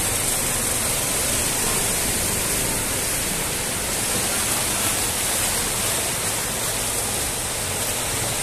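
Steady hiss of heavy rain and running floodwater on a flooded street.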